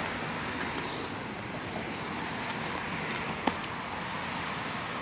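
Steady outdoor background noise of distant road traffic, with a single sharp click about three and a half seconds in.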